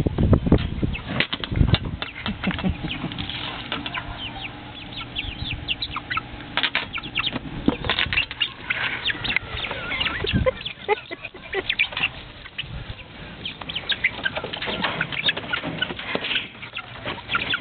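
Chickens scrambling and chasing one another, wings flapping in many quick irregular bursts, with clucks and squawks.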